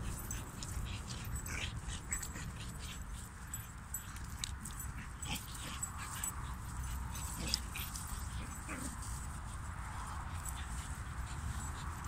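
German Pinschers playing, giving short yips and whimpers every so often over a steady low rumble.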